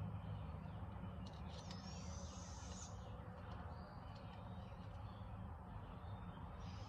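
Faint clicking and handling of a metal point being screwed onto a crossbow bolt, with a few clicks about a second and a half in, over a steady low hum and a few faint high-pitched chirps.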